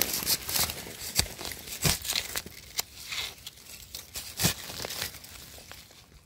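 Dry leaf litter crackling and rustling as a gloved hand digs through it and pulls a mushroom out of the soil: irregular crisp crackles, busiest at the start and thinning out.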